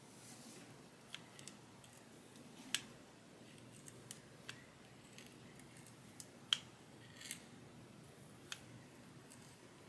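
Flat iron clicking as its plates clamp shut and open on a section of hair: a scattering of light, sharp clicks at uneven intervals over a faint hiss.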